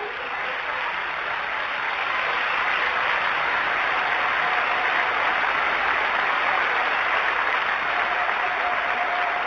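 Audience applauding, swelling over the first couple of seconds and then holding steady.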